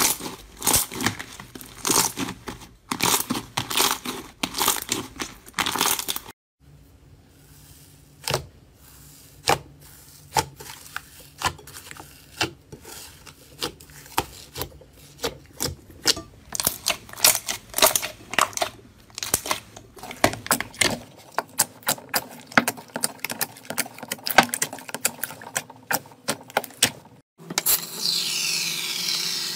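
Hands kneading and squeezing slime: dense crackling and squishing for about six seconds, then after a break a quieter run of sharp clicking pops as a glossy slime is pressed and poked. Near the end an aerosol can of shaving foam sprays with a steady hiss.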